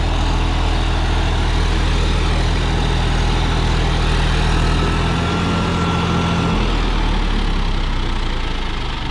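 John Deere 5405 tractor's diesel engine running steadily under load, driving a 10-foot rotavator through the PTO as it tills the soil. The engine note shifts about six and a half seconds in.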